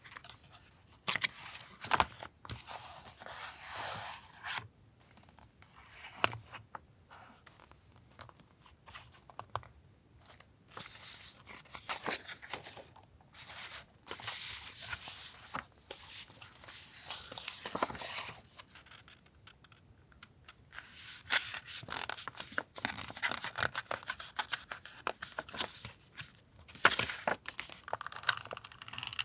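Paper being handled for a journal collage: rustling and tearing in stretches of a few seconds, with scattered sharp clicks and taps between them.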